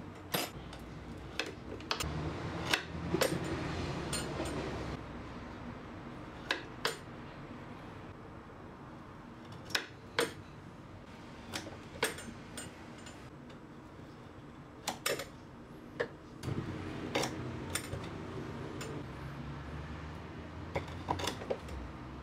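Irregular light knocks and clinks of soap-cutting work: a wire soap cutter, a wooden cutting box and freshly cut soap bars handled and set down, with soft rustling between.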